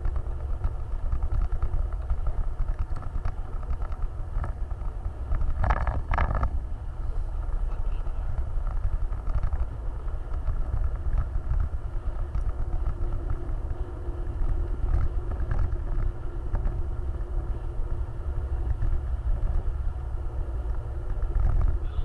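Off-road vehicle engine running with a steady low rumble while driving, with two short loud clattering noises close together about six seconds in.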